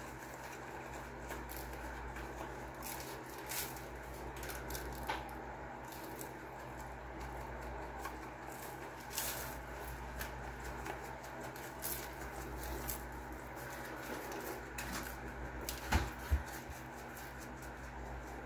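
Faint, irregular patter and ticking of a seasoning shaker being shaken over a brisket, the rub granules falling on the meat and the foil-lined pan, over a steady low room hum. A couple of louder knocks come near the end.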